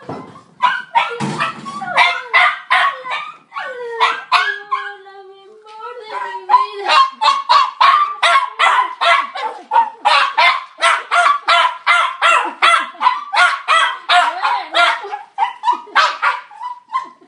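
Dog yelping and whining in rapid high-pitched cries, about two to three a second, with a long falling whine about four to six seconds in: the excited cries of a dog greeting its family.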